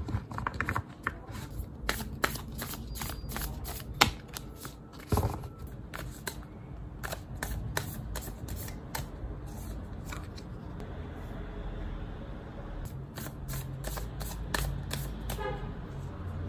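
A deck of tarot cards being shuffled by hand: an irregular run of soft card clicks and slaps, coming thicker near the end.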